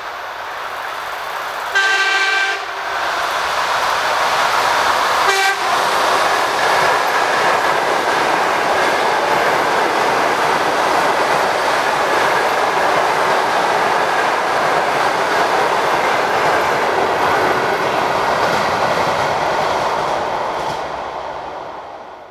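ED4M electric multiple unit passing at speed. It sounds its horn once for about a second and gives a short second blast a few seconds later, then comes the steady rushing noise of the cars and wheel clatter on the rails, which dies away near the end.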